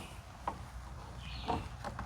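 Faint, sparse taps and clicks of a screw and screwdriver being handled against metal, two light knocks about half a second and a second and a half in, over a low steady hum.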